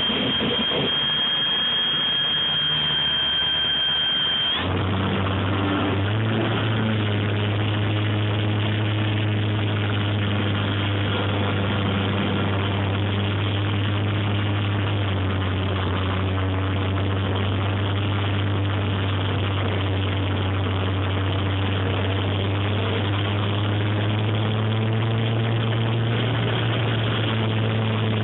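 Electric motor and propeller of a Dynam Corsair RC plane, heard from its onboard camera. A high, steady whine for the first four seconds or so; then a steady, low propeller drone with a rushing noise over it, its pitch shifting slightly a few times.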